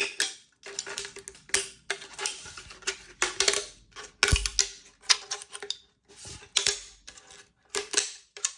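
Crunching and crackling of a thin 3D-printed plastic piece being handled, in irregular bursts of sharp clicks and crackles with short pauses between.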